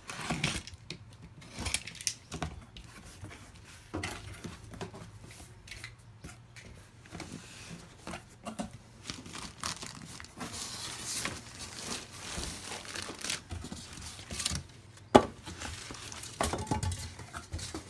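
Toaster oven's cardboard box being opened and unpacked: tearing, and packaging crinkling and rustling, with scattered knocks. One sharp, loud click comes about fifteen seconds in.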